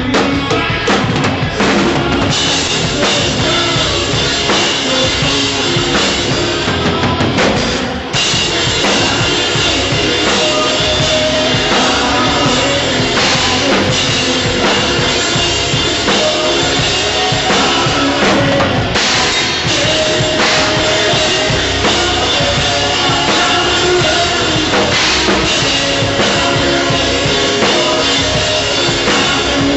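Rock band playing loudly, with a Tama drum kit up front: steady kick and snare hits and crashing cymbals over held notes from the other instruments. About eight seconds in the sound dips briefly, then comes back in with more cymbal.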